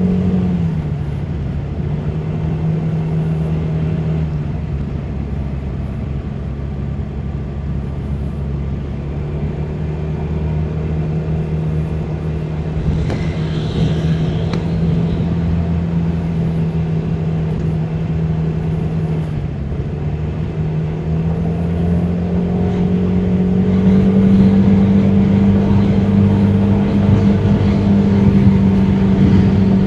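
Honda Forza 300 scooter's single-cylinder engine running as it is ridden, a steady hum whose pitch dips briefly about two-thirds of the way in and then rises, growing louder near the end as the scooter speeds up.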